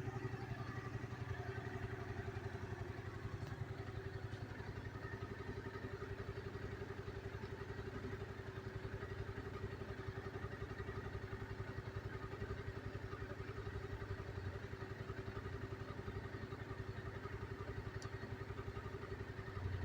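Kawasaki Z1000 inline-four motorcycle engine idling steadily, with an even, rapid pulse and no revving.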